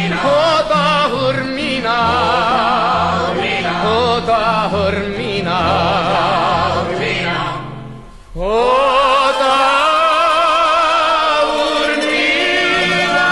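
Background music: a song with a singing voice with strong vibrato over a bass line that steps from note to note. About eight seconds in, the music fades almost to nothing and a new passage starts with a rising glide into held, wavering voices.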